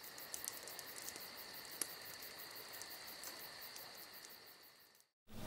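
Faint steady high-pitched insect chirring with light ticks over it, fading out near the end.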